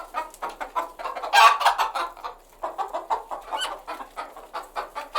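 Hen clucking in a quick run of short calls, with a louder squawk about one and a half seconds in.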